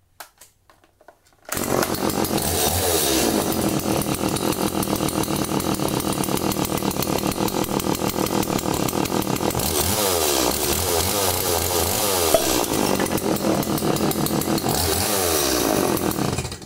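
Stihl MS 180 two-stroke chainsaw running. It comes in abruptly about a second and a half in, revs up and down three times, and cuts off suddenly near the end. One sharp click stands out above the engine about twelve seconds in.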